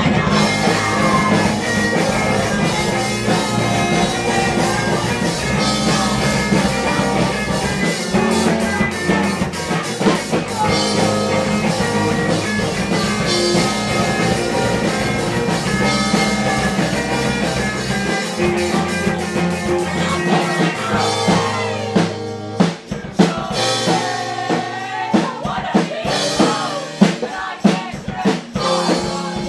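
Rock band playing: drum kit, electric guitar and singing. About two-thirds of the way in the full sound drops back and separate drum hits stand out.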